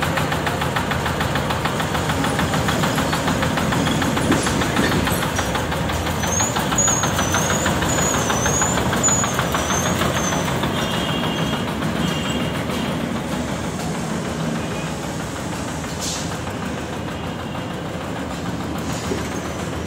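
The engine of a self-propelled paddy threshing machine running steadily as the machine is driven off, growing a little quieter in the second half.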